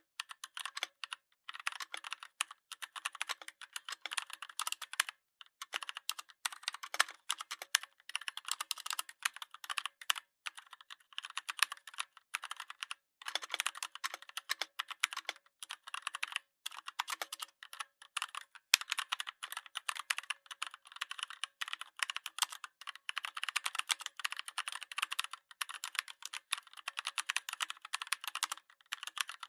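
Computer keyboard typing: rapid, continuous key clicks with short pauses every few seconds.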